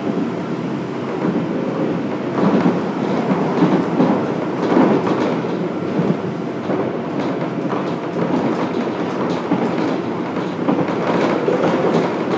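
Running noise inside a Fukuoka City Subway 1000N series train car under way: a steady rumble of wheels on rail with the clickety-clack of rail joints, the clicks coming more often in the second half.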